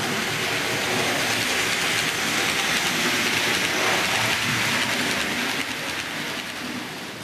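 HO-scale model train, a steam locomotive with passenger coaches, rolling past on the layout track: a steady rushing noise of wheels on rail that swells toward the middle and fades near the end.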